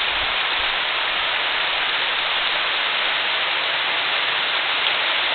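Creek water rushing down a natural rock water slide, a steady hiss that does not change.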